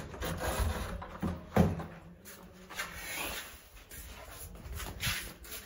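Wooden door being opened: two thumps about a second and a half in, then rubbing and rustling.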